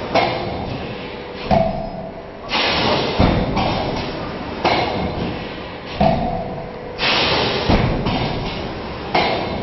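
A 70-cavity plastic cup thermoforming machine running in its forming cycle. A heavy thump and a burst of hissing air repeat a little over every two seconds.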